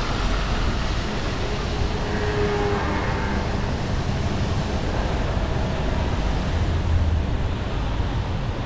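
Steady city street noise heard from a moving bicycle: traffic sounds under a low wind rumble on the microphone.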